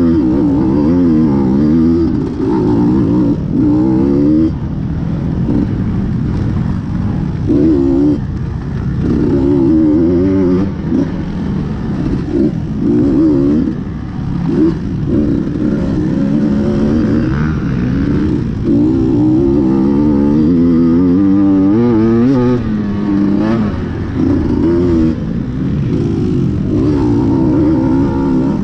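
KTM XC-W dirt bike engine being ridden off-road, revving up and down again and again as the throttle is worked, its pitch rising and falling every second or two.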